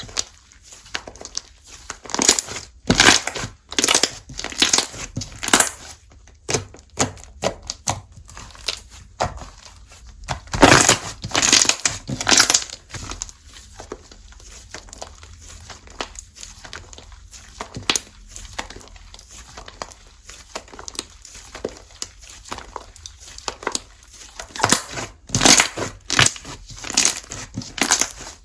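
Slime being squeezed and pressed by hand, making irregular sticky clicks and crackles, in louder flurries a couple of seconds in, about ten seconds in, and near the end.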